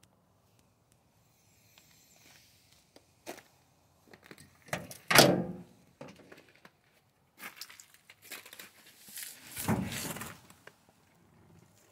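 Handling noises as someone climbs into the cab of an old pickup truck at the open driver's door: scattered knocks, one loud thunk about five seconds in, and a longer scuffing rustle near ten seconds.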